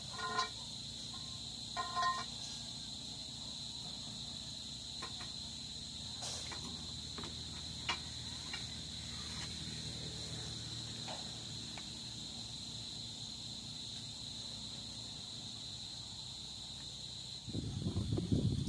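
Crickets trilling steadily on one high note. Near the start there are two short ringing metallic clinks about a second and a half apart. Near the end loud low rustling and knocking sets in.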